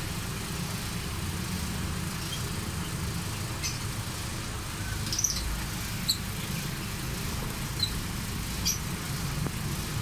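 Lovebirds giving about five short, high chirps a second or so apart in the second half, over a steady low rumble.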